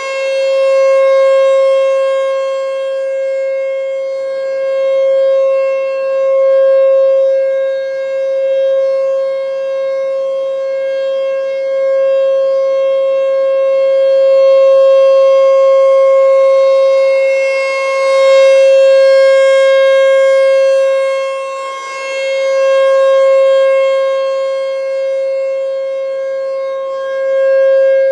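American Signal T-128 rotating outdoor warning siren sounding a steady, unchanging tone during its test. The tone swells and fades every few seconds as the rotating horn sweeps past, loudest about two-thirds of the way through.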